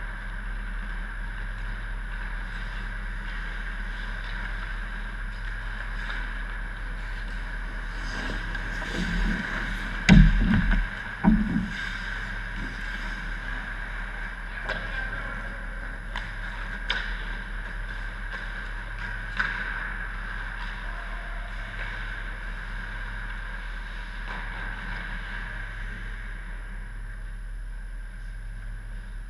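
Ice hockey play in an indoor rink: a steady hum throughout, a few sharp clacks of sticks and puck, and a cluster of heavy thumps about ten to twelve seconds in as play comes to the net.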